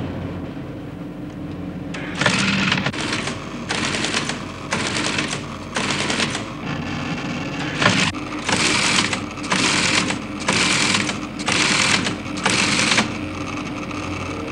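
Teleprinter printing out a noughts-and-crosses grid: short bursts of rapid clattering, about one a second, starting about two seconds in, over a steady machine hum.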